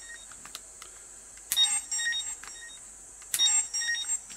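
Tobot V V-Watch toy bracelet turned at its top dial wheel, each turn setting off a short electronic beeping sound effect from its small speaker. It happens twice, each time a click followed by a quick run of high beeps lasting under a second.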